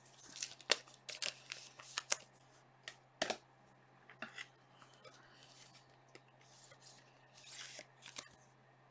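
Handling of a trading card in clear plastic sleeves and holders: scattered light clicks, taps and brief plastic rustles, with a longer rustle near the end. A faint steady low electrical hum runs underneath.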